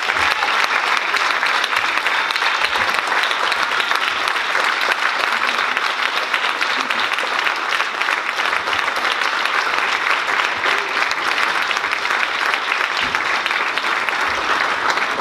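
Church congregation applauding, many hands clapping together at a steady level.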